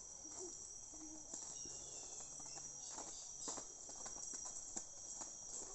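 Insects chirring steadily at a high pitch, with faint voices and a few soft knocks underneath.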